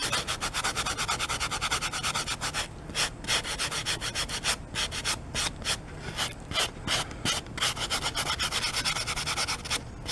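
Hand sanding of hardened Durham's water putty filled into particle board: quick back-and-forth strokes of about four a second, with a few brief pauses.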